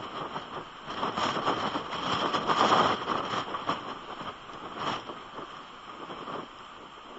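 Strong gusty wind and driving rain buffeting an outdoor camera microphone: a rough rushing noise that swells to its loudest about three seconds in, then eases off.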